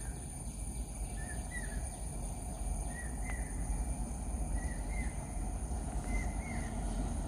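A bird repeating a short rising chirp about every second and a half, over a steady high insect drone and a low background rumble.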